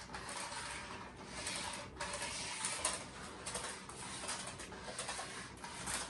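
Floor head of a switched-off canister vacuum cleaner pushed back and forth over the floor: a rolling, scraping rub that swells with each stroke.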